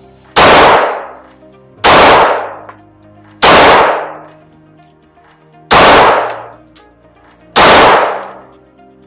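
Five single shots from a 9mm Glock 45 pistol, fired at an uneven pace about one and a half to two seconds apart, each followed by a fading echo.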